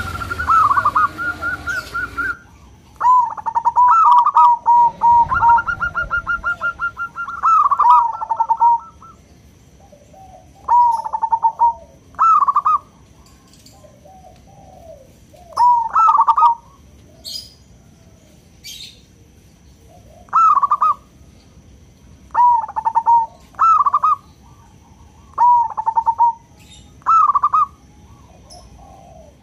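Zebra dove cooing its song: short phrases of quick, stuttering coo notes, a new phrase every couple of seconds, with a longer run of phrases in the first eight seconds.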